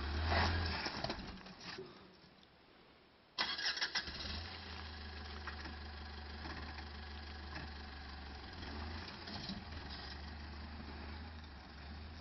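Mitsubishi Montero SUV's engine running at low revs as it crawls over a pile of loose earth. The sound cuts out completely about two seconds in and returns with a short clatter after about a second and a half.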